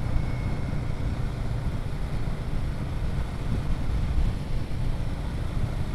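Riding noise from a Royal Enfield Himalayan 450 motorcycle under way: wind buffeting the camera microphone over a steady low rumble from the moving bike.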